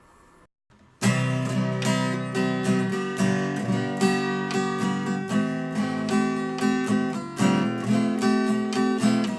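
Strummed acoustic guitar music, starting abruptly about a second in after a moment of near silence.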